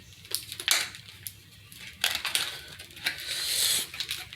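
Stiff plastic blister packaging crackling and clicking in irregular bursts as it is worked open.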